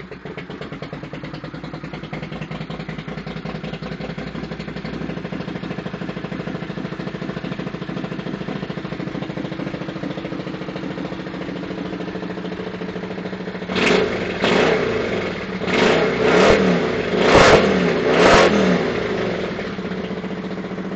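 Honda CX500 café racer's liquid-cooled V-twin engine idling steadily on its first start-up, then blipped about six times in quick succession a little past the middle, each rev rising and falling back, before settling to idle again.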